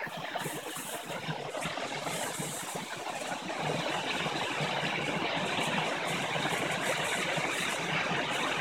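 Steady rushing noise of a waterfall pouring into a rock pool.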